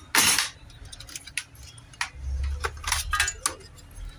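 Hands working on the opened plastic and metal chassis of a BenQ projector: a short loud scrape just after the start, then scattered clicks and clinks of parts being moved while the lens unit is freed.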